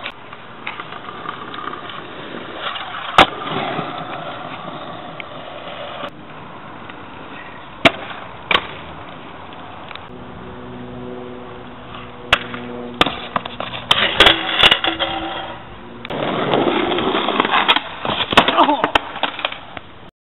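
Small hard wheels rolling over asphalt, broken by sharp clacks of deck landings and impacts at irregular moments, with a cluster of cracks in the second half.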